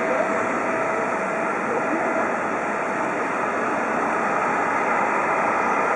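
Boeing 777 jet engines running at engine start: a steady rush with a faint whine that fades about a second and a half in.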